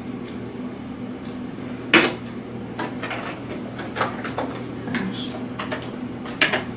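Scattered sharp clicks and taps from keyboard keys and trackpad buttons on an old Microsoft Natural-style keyboard with a built-in trackpad. The sharpest click comes about two seconds in, and all of it sits over a steady low hum.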